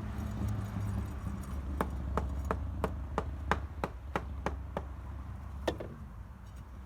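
A quick series of about ten sharp taps, roughly three a second, then a single tap about a second later, over a low steady rumble that fades near the end.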